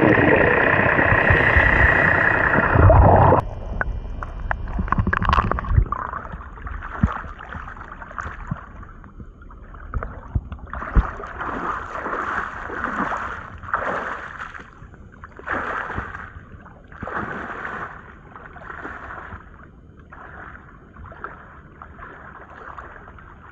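Loud underwater noise for about the first three seconds, cutting off suddenly. Then shallow seawater sloshing and splashing around wading legs, in swells about once a second.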